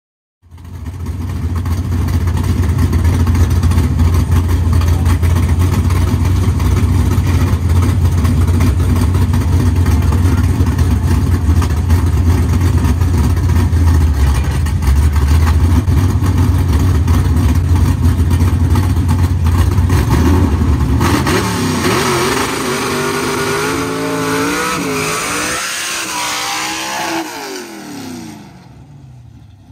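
Drag-race cars, a nitrous Chevy Nova and a Mustang, running with a loud, steady, deep rumble at the line for about twenty seconds. They then launch and rev up through the gears, the pitch climbing in steps, and fade as they pull away down the strip.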